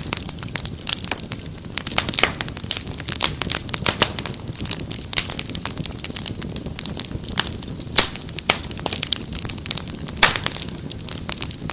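Wood fire crackling in a fireplace: a steady low rumble of flames with irregular sharp pops and snaps, a few louder cracks scattered through.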